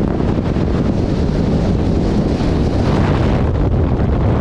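Wind buffeting the microphone of a camera held out of a moving car's window, a steady rushing over the car's road noise.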